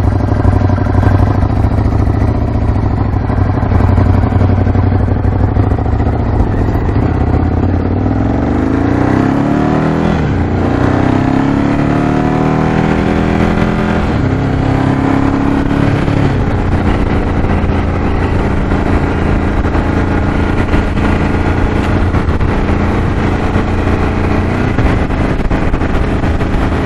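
Ducati Scrambler 1100's air-cooled L-twin engine idling, then pulling away and accelerating hard through the gears. Its pitch climbs and drops back at each upshift, then it settles into a steady cruise in top gear.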